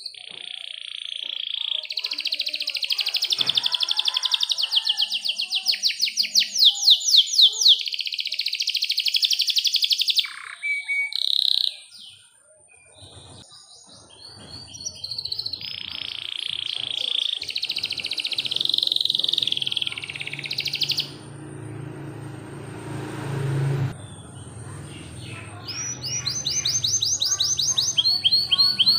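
Domestic canary singing long rolling trills, fast repeated high notes strung into phrases, in three bursts with short pauses between. A low hum rises in the background a little past the middle.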